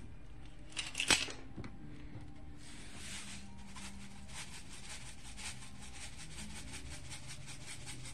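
Kosher salt being added to a bowl of cubed raw chicken: a couple of sharp clicks about a second in, then a faint, quick, even run of scratchy ticks.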